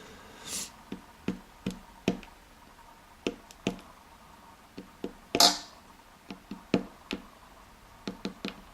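Small metal clicks and taps from a padlock's core and pins being worked with tools, with two brief scrapes of metal sliding on metal, the louder one about five and a half seconds in.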